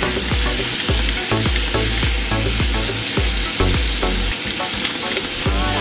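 Cubed pork sizzling in a nonstick frying pan as it is stirred with a silicone spatula, a steady hiss with scraping clicks, over background music with a regular beat.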